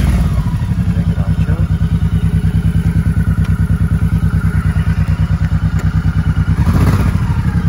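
Honda Shadow 1100 V-twin engine idling. Just after the choke is pushed off, the fast choked idle drops to a slower, evenly pulsing beat, with a brief rise in engine speed near the end.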